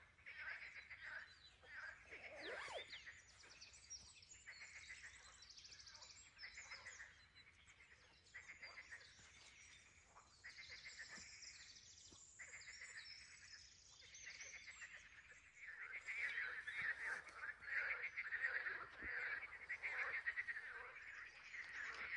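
Chorus of frogs calling in short, rapidly pulsed trills, one after another, with higher chirps mixed in. The calling grows denser and louder about two-thirds of the way in.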